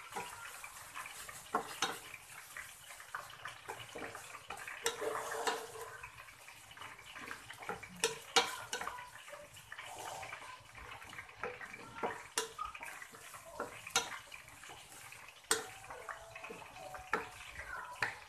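Onions, garlic and shrimp paste sizzling in a stainless steel frying pan as they are sautéed, stirred with a wooden spatula that scrapes and knocks against the pan every second or two.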